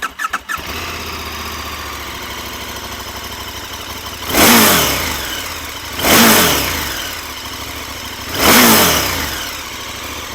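2023 KTM 1290 Super Adventure S's LC8 V-twin on its stock exhaust, firing up and settling into a steady idle. It is then blipped three times, about two seconds apart, each rev dropping back to idle.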